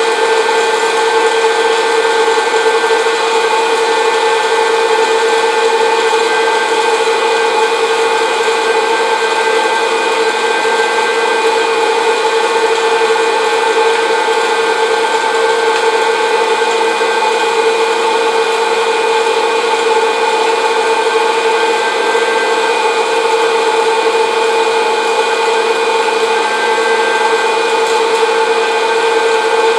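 Orville Redenbacher's hot-air popcorn popper running: its fan motor gives a steady whirring hum with a high whine, blowing hot air over the kernels before any have started to pop.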